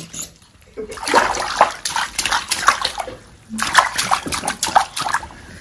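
Hands splashing water in a bubble-filled bathtub: quick, irregular splashes in two runs, with a short pause a little past halfway.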